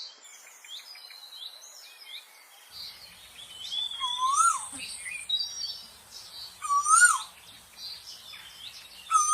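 Several birds chirping and whistling in high, quick notes, with one louder rising-and-falling call repeated three times, about two and a half seconds apart.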